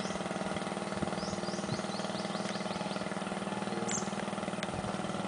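Small motorboat's engine running steadily as it pulls away up the river. About a second in, a bird gives a quick series of short falling chirps.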